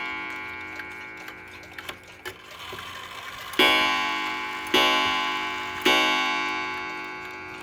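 Seth Thomas short-drop wall clock's striking train: a bare metal hammer hits the gong three times about a second apart, the first strike coming about halfway in, and each note rings and fades slowly. Before the strikes, the ring of an earlier blow is dying away, and the movement ticks softly throughout.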